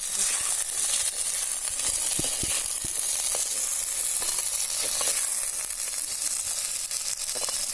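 Shallots and garlic sizzling in a little oil in an earthen clay pot, stirred with a steel ladle that clicks and scrapes against the pot now and then.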